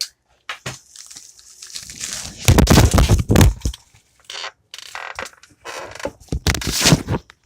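Clatter of a tablet that is recording as it tips off a table edge: a loud run of bumps and scrapes on its microphone about two and a half seconds in, with lighter rustling before and another burst of knocks near the end.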